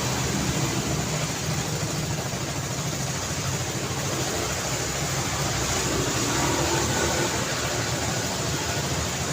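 Steady city street traffic: a continuous mix of car engines and tyre noise, with a low engine hum running under it.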